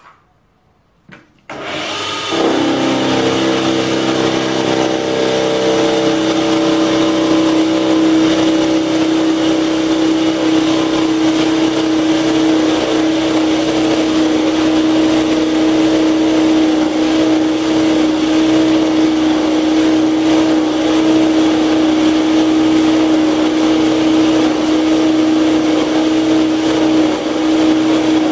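Small bench metal lathe switched on with a click or two, its motor and gears coming up to speed about a second and a half in and then running steadily with a strong whine, spinning a face mill in the chuck.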